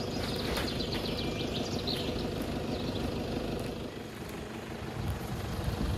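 Pickup truck engine running steadily at low speed while towing a trailer, with birds chirping in the first couple of seconds.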